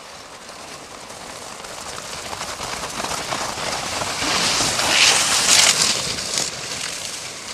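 Dog sled and skier gliding close past on packed snow: the runners and skis scrape and hiss over the snow, building to a peak about five seconds in and then fading away.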